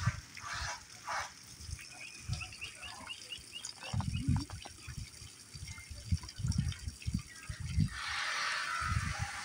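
Two big spotted cats growling in short, low bursts as they tussle, with a run of small high chirps about two to three seconds in.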